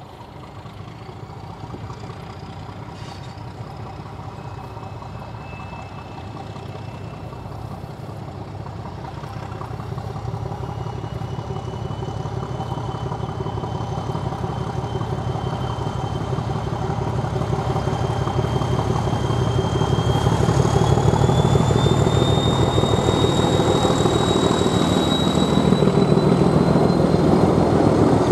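Two English Electric diesel-electric locomotives, NZR classes Di and Dg, hauling a passenger train. Their engines grow steadily louder as they approach. A high whine rises slowly in pitch, climbing most over the second half.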